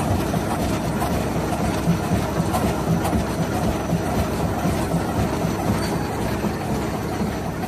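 ShengBaoTe SBT-620 rag and fibre cutting machine running, with fabric scraps riding its conveyor into the cutter: a steady, dense mechanical clatter.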